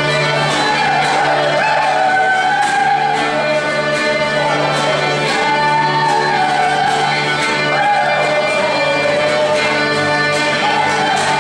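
Live contra dance music: a fiddle playing a lively dance tune with sliding notes over strummed string accompaniment, with a sustained low note and a steady beat.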